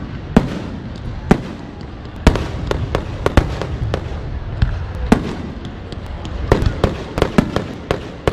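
Aerial fireworks shells bursting in an irregular string of sharp bangs, about fifteen in all, coming closer together near the end.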